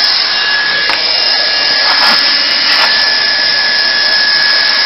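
Hand-held hot-air plastic welder blowing steadily, with a constant high whine over the rush of air, as its nozzle heats the edge of an HDPE liner patch for welding.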